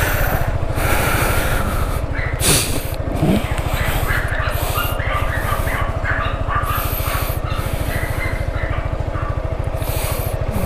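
Yamaha XMAX 300 scooter's single-cylinder engine idling with a steady, even low pulse. Short high chirps sound over it from about two seconds in.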